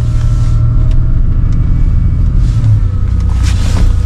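Pickup truck engine running as the truck drives through snow, a low steady rumble with a faint whine that drops slightly in pitch about three seconds in.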